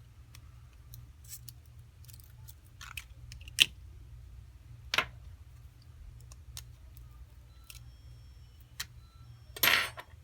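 Scattered small clicks and taps of a screwdriver and tiny screws against an iPhone 4S's metal frame as the phone is taken apart, with two sharper clicks near the middle and a short louder rustle near the end. A low steady hum runs underneath.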